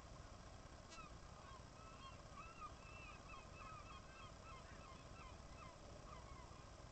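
Faint chorus of seabirds calling at a nesting cliff: many short rising-and-falling honking calls overlapping, thickest from about one second in until near the end, over a low, steady rumble.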